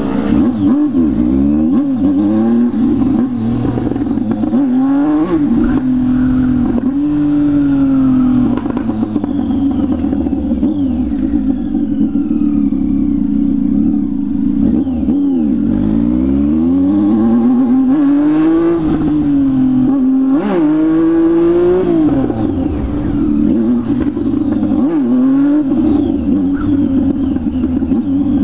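Several motorcycles with loud aftermarket exhausts revving up and down, their engine notes overlapping and rising and falling again and again.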